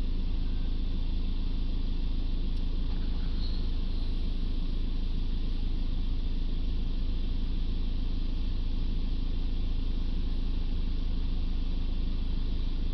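Ford diesel engine idling steadily, a low even hum heard from inside the cab.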